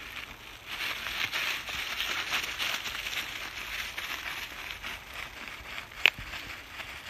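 Dry leaf litter and twigs rustling and crackling underfoot as a person and a tracking dog move through the woods, with one sharp click about six seconds in.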